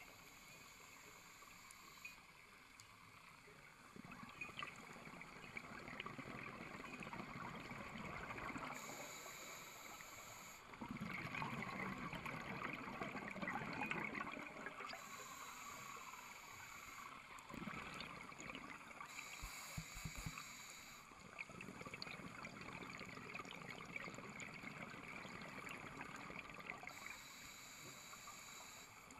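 Scuba divers' exhaled bubbles gurgling up from their regulators underwater, coming in louder bursts every five or six seconds with each breath out.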